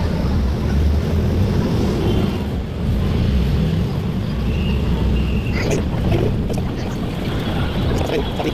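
Open-sided tram moving along at a steady speed: a constant low rumble of its running and road noise, with wind across the microphone.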